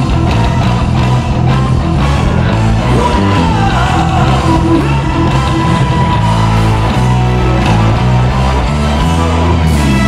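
Live rock band playing loud, with drums, bass and electric guitar, and a singer's voice at times.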